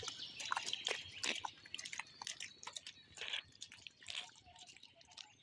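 Water dripping and splashing from a wet, mud-laden fishing net into shallow muddy water: many small irregular drips and splashes, fading away toward the end.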